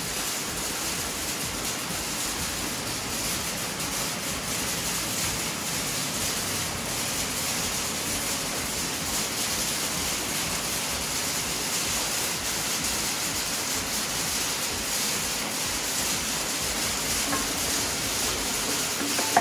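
Steady, even hiss of background noise that does not change.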